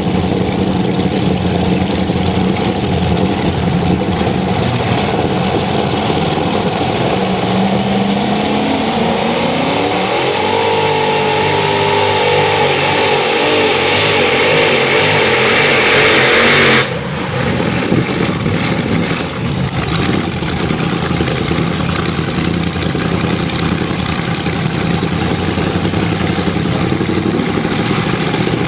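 Multi-engine modified pulling tractor running: a steady, loud engine note, then revving with the pitch climbing and the volume rising over several seconds. It breaks off suddenly, and the engines run steadily again.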